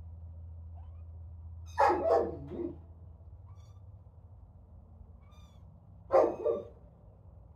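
Young kittens mewing with faint, thin, high cries. Twice, about two seconds in and again about six seconds in, a much louder, harsher animal call breaks in.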